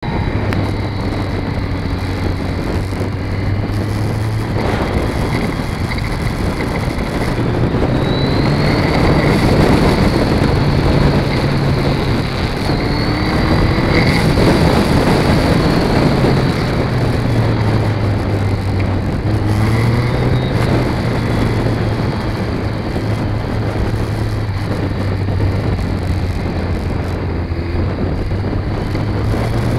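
Motorcycle engine running under way on a twisty road, its revs rising and falling several times through the gears, with a higher whine climbing as it pulls, over steady wind noise.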